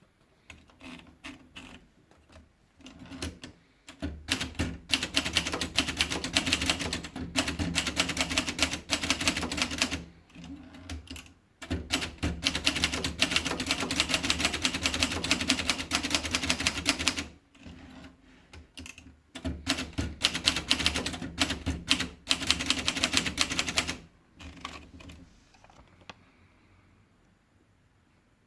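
Underwood 35 typewriter being typed on: keys strike in three long, fast runs separated by short pauses, with scattered single key strikes at the start and near the end.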